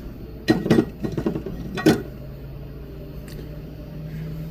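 A few sharp clicks and knocks of small repair tools against the phone and the bench in the first two seconds. Then a steady low hum sets in and rises slightly in pitch.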